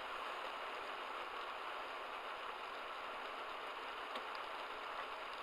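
Heavy downpour falling steadily on a car, heard through a dashcam's microphone as an even hiss with a few faint ticks of drops.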